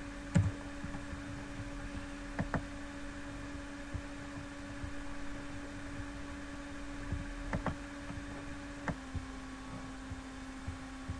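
Steady electrical hum from the recording setup, with a few sharp computer mouse clicks: one about half a second in, a quick double click a couple of seconds later, another double click about halfway through, and a single click near the end, where the hum's pitch steps slightly lower.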